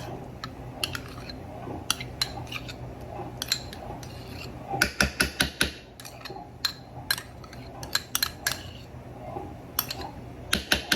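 A kitchen utensil clinking and tapping against a bowl while mayonnaise is scooped in, with scattered knocks and a quick run of taps about five seconds in and again near the end.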